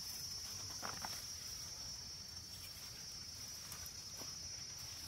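Steady high-pitched insect drone in undergrowth, with a few faint clicks and snaps about a second in and again past four seconds as a knife cuts through grass and bamboo stems.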